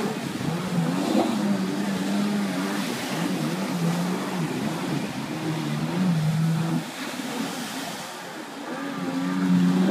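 Kawasaki stand-up jet ski engine running hard, its pitch rising and falling as the throttle is worked through tight turns, over the rush of spray. The engine eases off around seven to eight seconds in, then builds again near the end.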